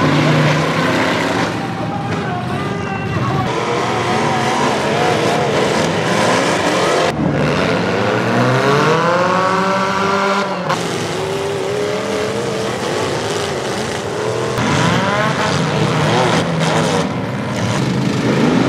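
Demolition derby cars' engines revving up and down over a loud, continuous din of motors, with one long rev rising and falling about halfway through.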